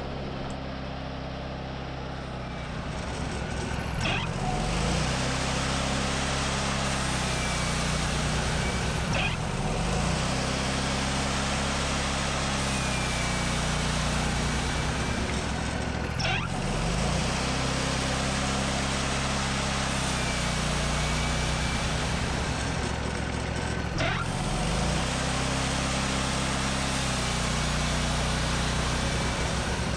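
Portable sawmill's engine running steadily while sawing a log into boards, its pitch shifting every several seconds, with a few brief clicks.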